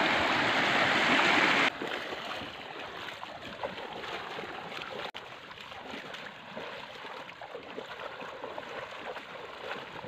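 Muddy river water rushing loudly over rocks, cutting off abruptly after under two seconds. Then comes a much quieter, steady sound of water with faint scattered splashes from wading in shallow water.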